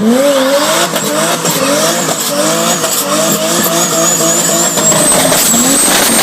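Turbocharged 2JZ inline-six in a Jeep Wrangler, revved hard in short repeated climbs, each rise dropping back about every half second. From about four seconds in, a thin high whine climbs steadily in pitch over the engine.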